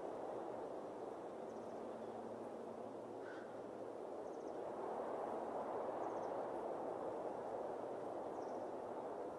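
Steady rushing outdoor background noise, with a faint, short, high chirp every two to three seconds.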